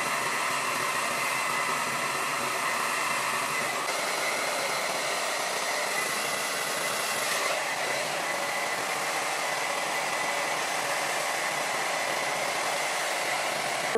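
Handheld hair dryer running steadily, blowing air over the lace hairline of a wig as it is being installed.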